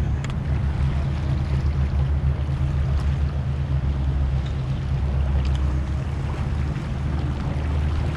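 Steady low rumble of wind on the microphone over water moving against the jetty rocks, with a few faint ticks.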